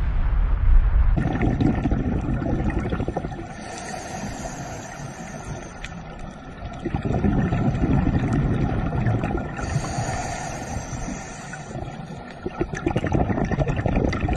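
Underwater recording of scuba divers breathing through their regulators, their exhaled bubbles gurgling and swelling in louder and quieter stretches. About a second in it replaces a low wind rumble.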